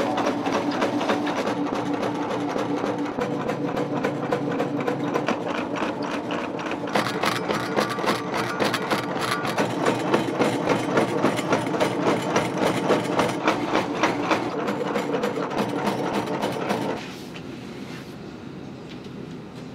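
Motor-driven noodle machine running with a steady hum and rapid, even clicking, stopping about three seconds before the end.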